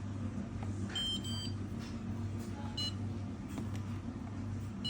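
Whirlpool dishwasher control panel beeping as its buttons are pressed to step through the wash programs: two short high beeps about a second in, another near three seconds and one at the end, over a steady low hum.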